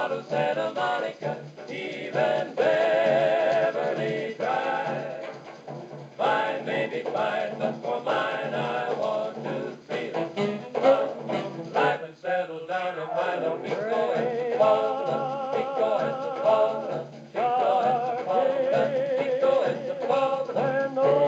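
A novelty song record playing: a singing voice with a strong vibrato over a dance orchestra.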